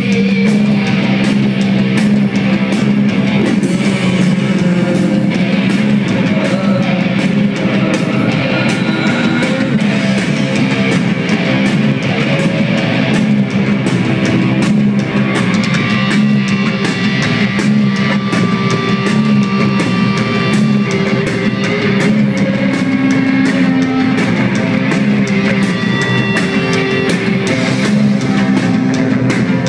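Rock band playing live: loud electric guitars over a steady drum kit, without a break.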